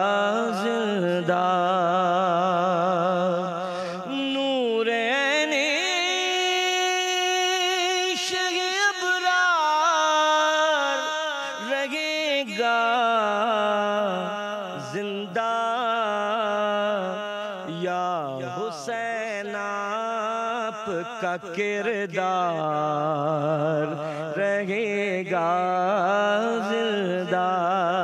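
A man sings a manqabat, an Urdu devotional poem in praise of Imam Hussain, into a microphone. His voice moves in long drawn-out melodic phrases with a strong wavering vibrato, climbing to a high held passage a few seconds in and then falling back.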